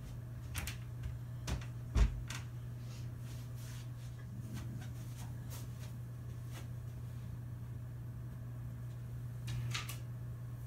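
A handful of sharp knocks and clicks, the loudest about two seconds in, like a cupboard or drawer being handled, over a steady low room hum; near the end a brief rustling scrape.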